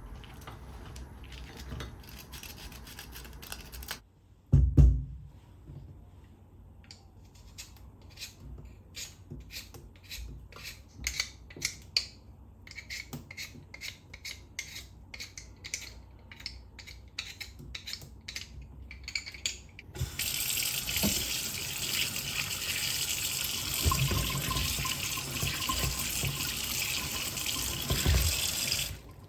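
Potatoes being washed under a running kitchen tap: water rushes steadily into the sink for the last nine seconds and stops suddenly. It is preceded by a single loud thump about five seconds in and a long run of light clicks and scrapes.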